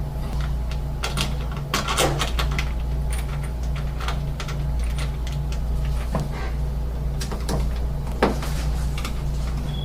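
Scattered clicks and knocks of metal door-lock parts being handled and fitted, over a steady low hum.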